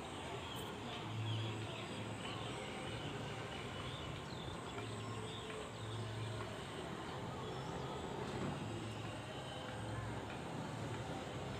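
Steady outdoor background noise, a low rumble that swells and fades under a faint even hiss.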